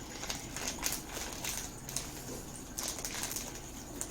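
Scattered small clicks and crinkly rustles of a toy package being handled and worked open.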